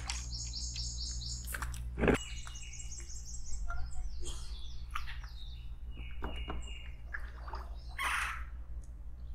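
Songbirds chirping in quick series of repeated high notes, over a steady low hum, with a sharp knock about two seconds in.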